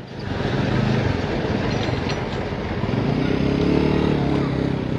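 A loaded dump truck's diesel engine running as it drives along a dirt road, with a steady engine drone and road noise. The drone grows louder about three seconds in.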